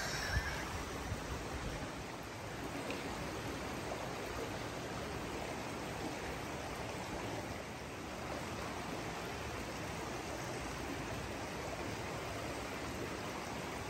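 Shallow, peat-stained stream running over rocks and fallen logs: a steady rush of water.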